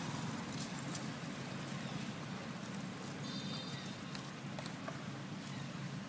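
Steady outdoor background noise with scattered faint crackles, and a brief high chirp or squeak a little over three seconds in.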